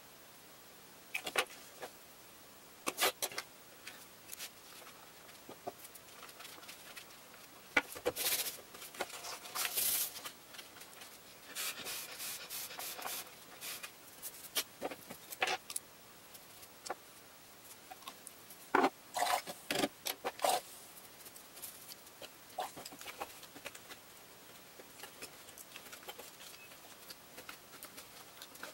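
Scattered clicks, knocks and rubbing or sliding noises of painting supplies being handled and set down on a wooden tabletop, with a busier cluster of knocks about two-thirds of the way through.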